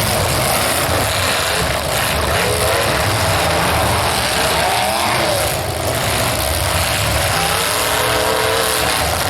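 Demolition derby cars' engines running loudly and revving, their pitch rising and falling a few times.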